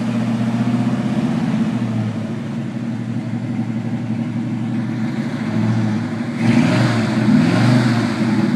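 1970 Chevrolet C10 pickup's engine running steadily near idle, getting louder and brighter for a couple of seconds about six and a half seconds in, like a light rev, then settling back.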